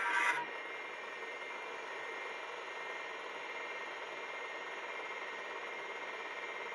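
Steady machine hum of a 286 PC running, its cooling fan and Seagate ST-251 MFM hard disk spinning, heard as a hiss with a faint steady whine. A brief louder noise comes right at the start.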